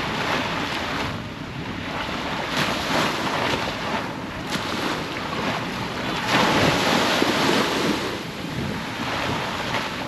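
Sea surf washing onto the beach, with wind buffeting the microphone; the rush swells louder about six seconds in.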